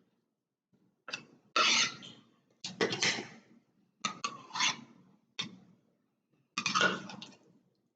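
A utensil scraping mashed cooked tur dal out of its container into the Instant Pot, in several short strokes with sharp starts.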